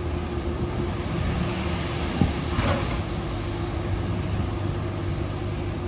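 Heavy construction machinery engine running steadily at a constant speed, with one brief sharp knock about two seconds in.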